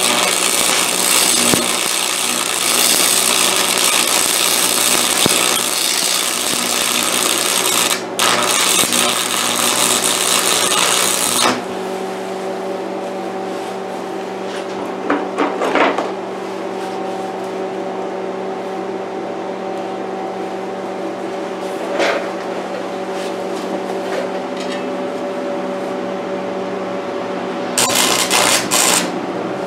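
Stick (arc) welder's arc crackling and sizzling while welding steel, breaking off briefly about eight seconds in and stopping about eleven seconds in. In the pause a steady hum and a few short knocks are heard, then the arc strikes again near the end for about two seconds.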